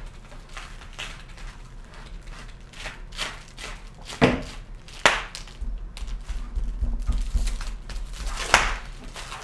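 Unpacking noise: rustling and crumpling of plastic wrapping, with a few sharp knocks, the loudest about four, five and eight and a half seconds in.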